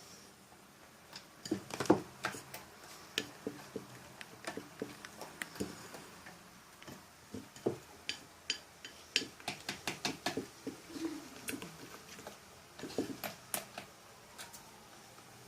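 Irregular clicks and taps of a utensil knocking against a container while glue-based slime mixture is stirred, the loudest knock about two seconds in.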